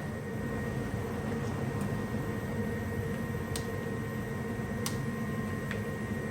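Gas furnace running with its burners lit: a steady rush of burner and blower air with a faint hum, and a couple of light clicks partway through.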